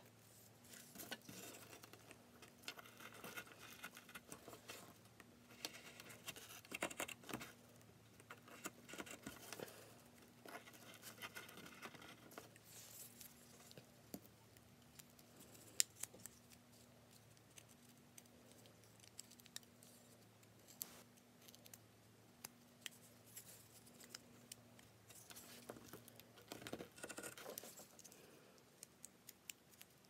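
Carving knife whittling a small wooden bird carving: faint scraping shaving cuts in short bunches, with scattered small clicks.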